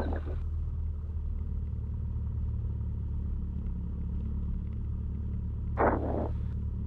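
Cessna 172's piston engine and propeller running steadily at low taxi power, heard as an even low drone through the cockpit headset intercom. A brief voice sound comes near the end.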